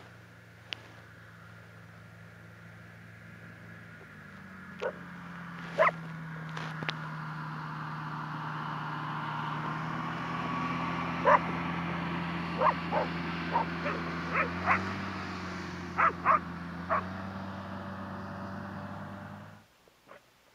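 A motor running steadily, its pitch stepping up a little about four seconds in, with a dog barking a dozen or so short times over it; the motor sound cuts off abruptly near the end.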